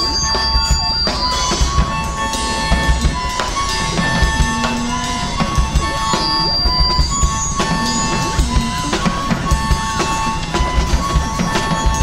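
Live electronic music: a drum kit playing with kick and snare hits under short, repeating pitched blips from a modular synthesizer, over a low bass layer.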